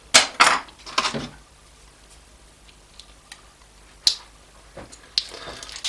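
Laptop power adapter's plastic case being handled and worked open, giving a run of sharp clicks and knocks in the first second and a half, then scattered faint ticks and two more sharp clicks later on.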